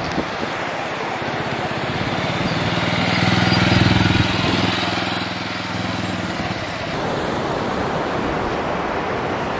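A motor vehicle's engine passing close by: a steady low hum that swells to its loudest about four seconds in and fades out by about seven seconds, over a steady rushing noise.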